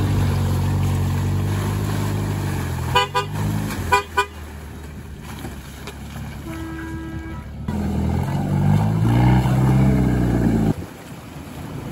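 Off-road 4x4 engines running hard under load while a Toyota SUV is towed out of deep mud on a tow strap. A car horn toots briefly twice, about three and four seconds in. Later an engine revs up and then cuts off near the end.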